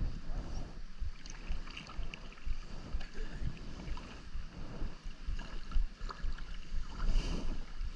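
Kayak paddle dipping and splashing, with water lapping against the hull and a low rumble of wind on the microphone.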